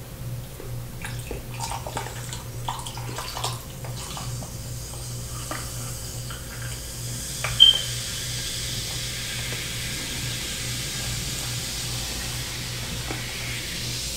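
Water poured from a plastic bottle into a tall glass of ice: a steady pouring hiss, with ice clicking and crackling in the first few seconds and one sharp clink about seven and a half seconds in.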